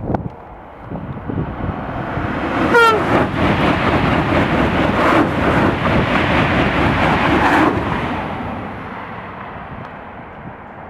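TGV-family high-speed train passing at speed: the rush of wheels and air swells, stays loud with a quick run of knocks as the wheelsets go by, then fades away as the train recedes. A brief falling tone sounds as the noise builds.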